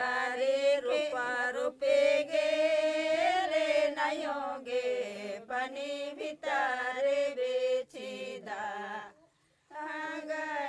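A woman singing unaccompanied, with long held notes in phrases broken by short pauses and a brief silence near the end.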